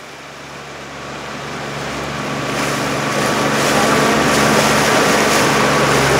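Motorboat engine running with a steady low hum, under a rush of wind and water noise that grows steadily louder.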